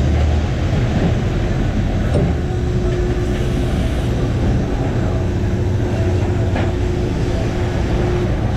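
Steady low rumble of a crab boat's engine and deck hydraulics, with a steady whine joining about two and a half seconds in as the hydraulic block hauls in the buoy line.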